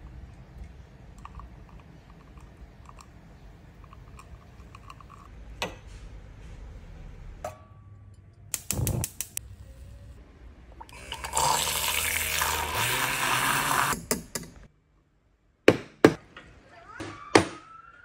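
A quiet low hum with small clicks, then several seconds of loud, even hissing while milk is heated to 60 °C for a latte. Near the end, three sharp knocks: a milk jug tapped on the counter to settle the foam.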